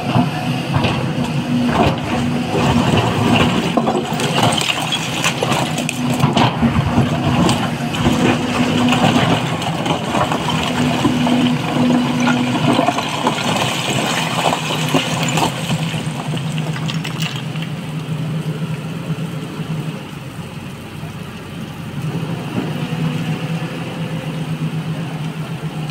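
SANY SY225 hydraulic excavator's diesel engine running under load as its bucket digs into blasted rock, with clattering and scraping of stone. The rock noise dies down about two-thirds of the way through, leaving the engine running steadily.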